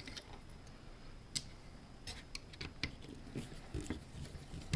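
Scattered small clicks and taps of a screwdriver working out screws from a battery charger's power supply board, with light handling of the parts. The sharpest click comes about a second and a half in, another near the end.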